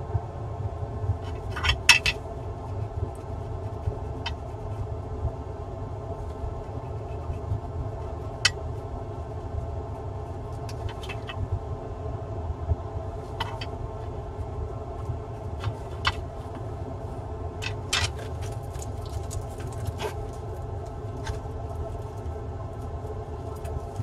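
Steady low hum of workbench equipment, with scattered light clicks and taps as a laptop motherboard and tools are handled and set down on the repair mat, a small cluster of them at about two seconds and a busier run of them a little past the middle.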